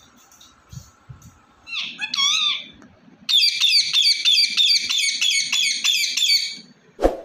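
Ring-necked parakeet calling: a few short wavering whistled calls, then a rapid run of shrill repeated notes, about four a second for some three seconds. A single sharp thump near the end.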